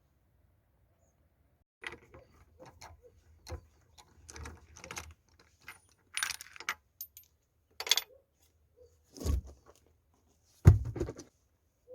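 Metal tools and parts clinking and clanking as a car's rear wheel is being taken off: a string of separate knocks and clicks starting about two seconds in, with a louder clank near the end.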